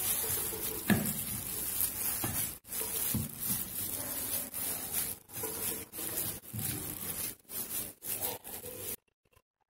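Wooden spatula stirring and scraping a shredded chicken and onion filling around a nonstick frying pan, in uneven strokes with short breaks over a steady hiss, stopping shortly before the end.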